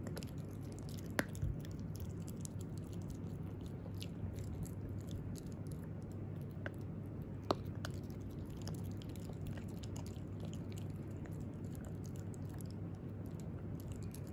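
Italian greyhound puppy gnawing a green breath-freshening dental chew stick: wet chewing with many small irregular clicks and crunches, and two sharper cracks, about a second in and about halfway.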